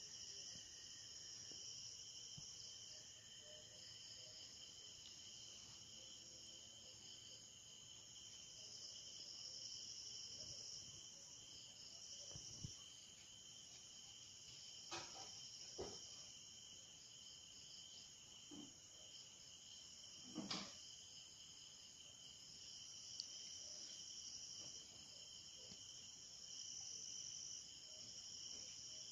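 Faint, steady high-pitched chorus of insects, swelling and fading every few seconds, with a few soft knocks around the middle.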